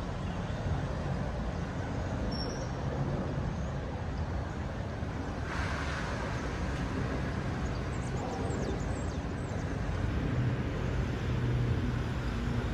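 Steady low rumble of distant city traffic, with a brief hiss about halfway through and a few faint high chirps.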